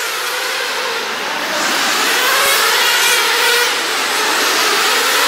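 Several nitro RC sprint cars' small glow-fuel engines running at high revs together around a dirt oval, a dense wavering whine that grows louder over the first couple of seconds.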